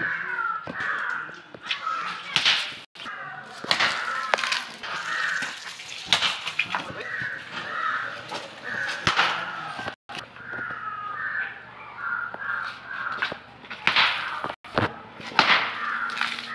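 Water flung hard from a plate splashing onto a person, several sharp splashes a few seconds apart. Crows cawing repeatedly in the background.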